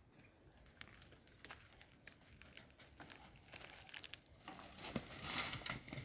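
Dry leaves and twigs crackling and snapping in brush, as scattered clicks at first and then a denser, louder crackle over the last second and a half as an animal comes running through the dry scrub.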